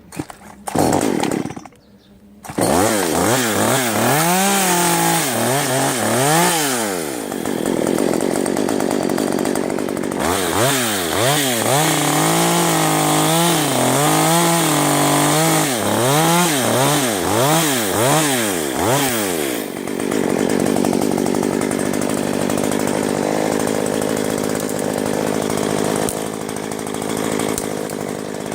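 Gasoline chainsaw running, coming in about two and a half seconds in after a few short knocks. The throttle is revved up and down repeatedly in two spells, with steadier stretches between where the saw runs at a held speed, as when cutting into wood.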